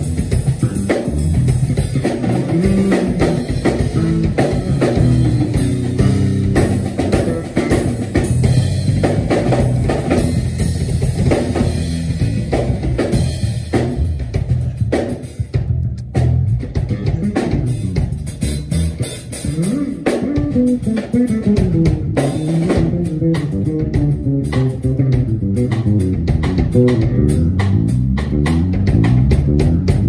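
A Fender Jazz Bass and a drum kit playing a groove together, the bass busy with quick notes and slides. The sound thins out briefly about halfway, then picks up again.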